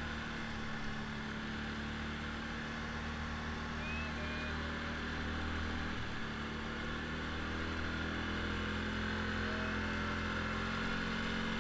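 ATV engine running at a steady speed while the quad drives across sand.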